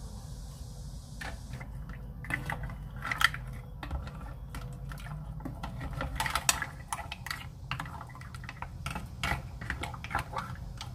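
Mussel shells clicking and clacking against each other and the metal pot as the soup is stirred with a spatula: irregular sharp clicks starting about a second in, over a steady low hum.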